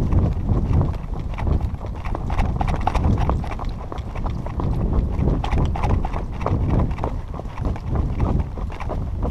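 Hoofbeats of a brown-and-white pinto horse on a dirt forest trail, an unbroken run of clip-clops heard close up from the saddle.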